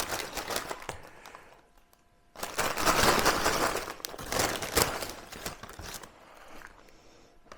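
Paper shaker bag of fries crinkling, then shaken hard for about three and a half seconds to coat the fries in seasoning, with the bag rustling and crackling throughout the shake.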